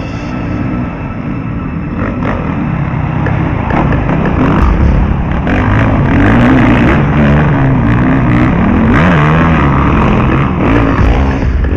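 Motocross bike engines revving hard as two riders come down the track and pass close by. The throttle rises and falls through a turn, and the engines get louder from about six seconds in.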